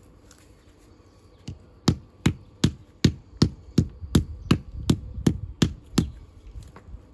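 Stonemason's hammer striking stone in a steady run of about a dozen sharp blows, roughly three a second, starting about two seconds in and stopping about two seconds from the end.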